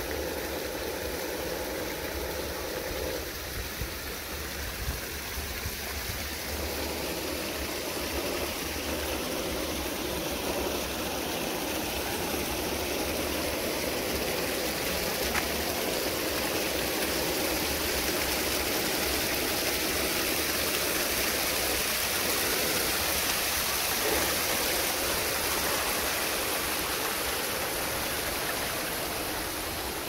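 Steady rushing water of a forest waterfall and stream, growing a little louder and brighter after about ten seconds.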